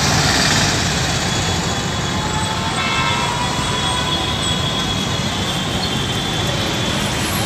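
Busy city street traffic: a steady wash of engine and road noise from motorbikes and auto-rickshaws.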